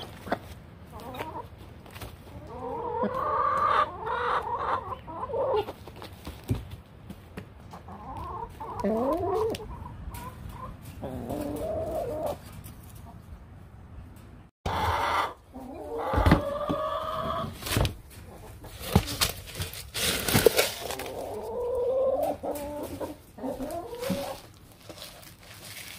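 Backyard hens clucking, in several drawn-out bursts of calls a few seconds apart, with a few short sharp knocks in the second half.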